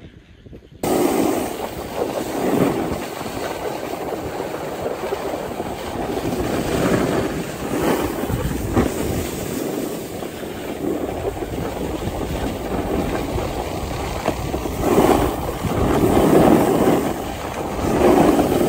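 Wind rushing over the microphone mixed with the scraping hiss of sliding down a packed-snow run, swelling and easing unevenly. It starts abruptly just under a second in.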